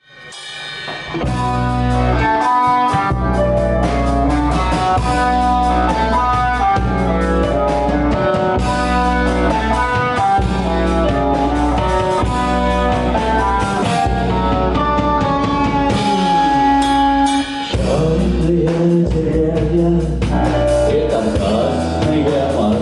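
Instrumental intro of a rock song: drum kit, bass and guitar under a stepping lead melody, fading in over the first second or two and shifting to a different part about eighteen seconds in.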